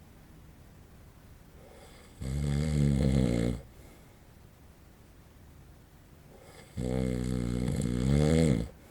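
A sleeping man in his forties snoring twice. Each snore is a low, pitched drone lasting one to two seconds, about four and a half seconds apart, with the second longer and louder.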